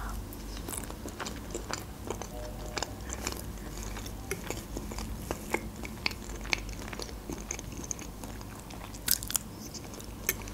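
Close-miked chewing of soft mashed potato: wet mouth sounds and many small smacks and clicks, scattered unevenly.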